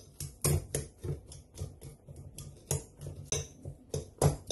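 Potato being crushed with a metal utensil in a bowl: repeated taps and knocks of metal against the dish, about three a second, some with a short bright ring.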